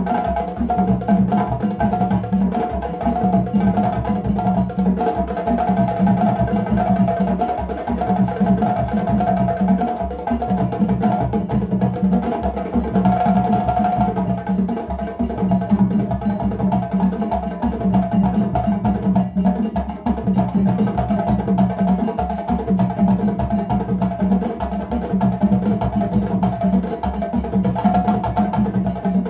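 Ensemble of hand-played djembes drumming together in a fast, dense, continuous rhythm.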